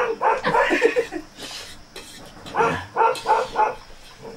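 A dog barking in short bursts: a cluster in the first second, then a quick run of about four barks past the middle.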